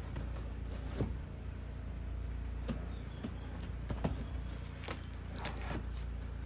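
A large cardboard shipping box being opened by hand: scattered scrapes, creaks and clicks of cardboard and tape, over a steady low hum.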